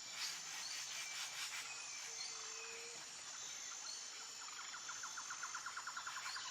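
Faint nature ambience: a steady high insect drone with scattered bird chirps, and a fast series of repeated chirping notes starting near the end.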